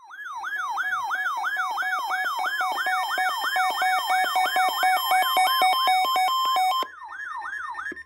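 Electronic emergency alert siren: a fast warbling tone sweeping up and down about three times a second, with steady beeps at two alternating pitches joining in for a few seconds in the middle. It is the alarm that announces an incoming warning, here a blizzard warning.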